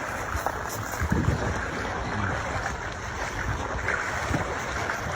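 Wind buffeting the microphone over the wash of waves, a steady rushing noise with irregular low thumps.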